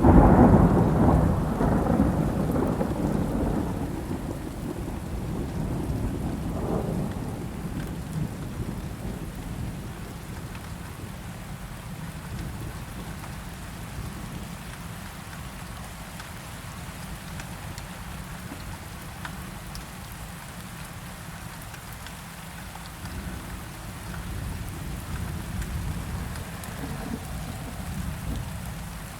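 Thunderstorm with steady rain: a loud roll of thunder at the start that rumbles away over the first few seconds, another rumble about seven seconds in and softer distant rumbles later, over continuous rainfall.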